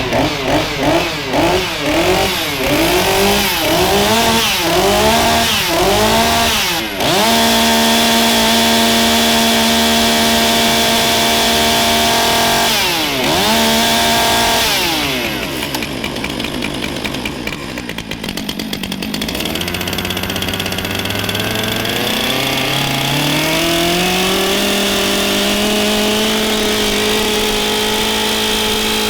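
Stihl chainsaw run with its bar and chain off, first blipped in quick revs about one every second. It is then held at high revs with a brief dip, falls to low revs and climbs slowly back to a steady high rev. The saw is being run up so its new chain oiler starts pumping.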